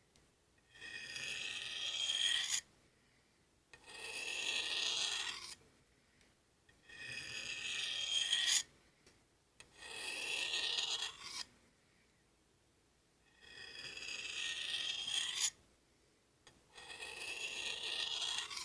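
A knife blade drawn slowly along a sharpening steel in six long rasping strokes of about two seconds each, with short pauses between them. Most strokes end in a brief sharp tick as the blade leaves the steel.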